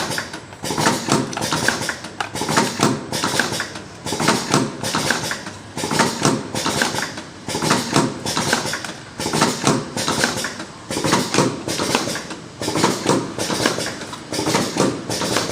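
Automatic cartoning machine running with its pillow-pack wrapper: a steady, even cycle of mechanical clatter and clacks repeating about every three-quarters of a second as packs are wrapped and boxed.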